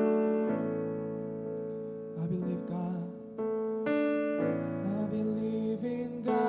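Keyboard playing slow, sustained chords of a worship song, changing every second or so, with a voice singing faintly at moments.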